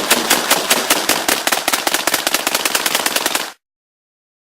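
Two AA-12 fully automatic 12-gauge shotguns firing together in one long burst, about ten shots a second, that cuts off abruptly about three and a half seconds in.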